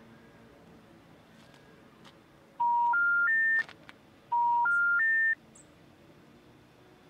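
Phone special information tone: three rising beeps, each sequence about a second long, played twice. It is the signal that the call cannot be completed.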